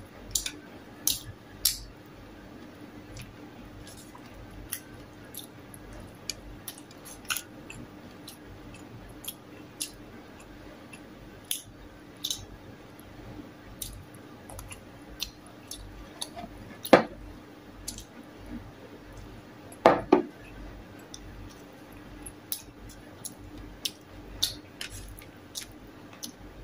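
Close-up eating sounds of crispy bacon eaten by hand: many short crunching and chewing clicks, with pieces rustling on a metal tray as they are picked up. Two louder knocks come in the second half, about three seconds apart, over a faint steady hum.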